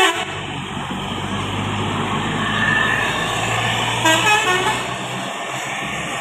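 A bus's engine and road noise running steadily. About four seconds in, a short burst of its multi-tone telolet horn plays a stepping tune.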